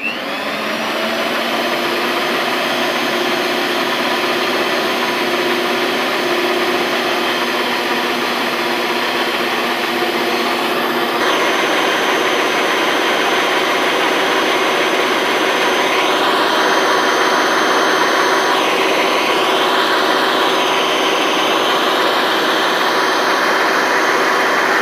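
Miyako stand mixer switched on and running steadily, its electric motor and beaters mixing cake batter of eggs, sugar, butter, oil and flour. Its tone changes about halfway through.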